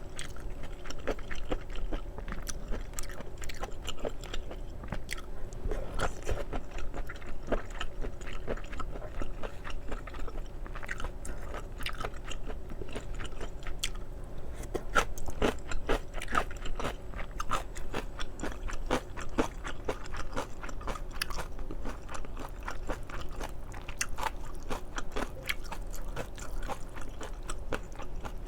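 Close-miked chewing and biting of spicy stir-fried octopus with noodles: a continuous, irregular run of wet mouth clicks.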